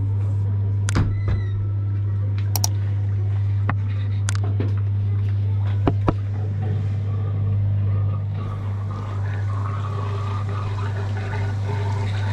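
Pedicure spa chair's motor running with a steady low hum, with a few sharp clicks in the first six seconds.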